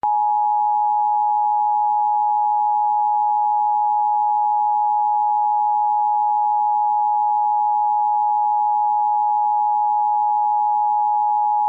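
Emergency Alert System attention signal: two steady pure tones (853 and 960 Hz) sounding together at an unchanging level, starting abruptly. It marks the start of an emergency broadcast, here a flash flood warning.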